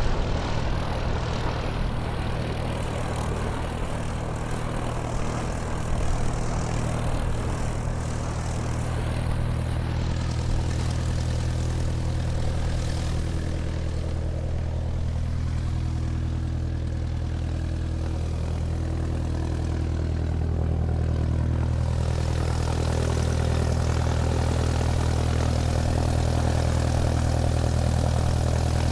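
Airplane engine running steadily while the aircraft taxis: a continuous low drone that gets a little louder near the end.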